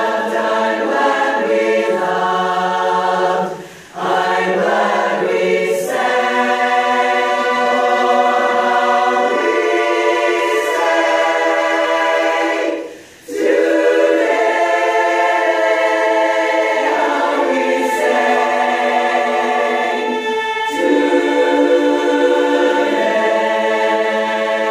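A roomful of women singing a cappella together in barbershop-style harmony, holding sustained chords, with two short breaks between phrases about four and thirteen seconds in.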